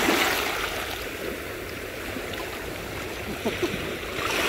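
Sea waves washing: a steady rushing that swells at the start and again near the end.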